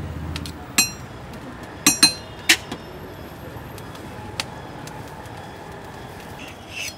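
A few sharp metallic clinks of utensils, each ringing briefly, bunched in the first two and a half seconds, with one fainter clink later, over steady street-stall background noise. A low rumble stops about half a second in.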